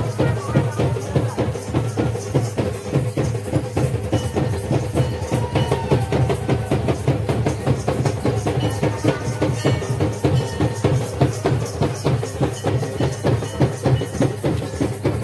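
Rapid, steady drumming that keeps an unbroken fast beat, with a faint held tone beneath it.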